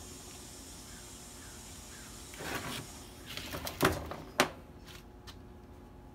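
Pool pump motor being handled and set down on a workbench: a brief scrape, then two sharp knocks about half a second apart, followed by a couple of faint clicks.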